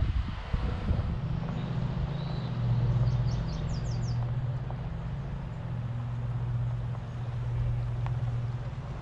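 An engine running steadily with a low, even hum. A few short, high chirps come about three to four seconds in.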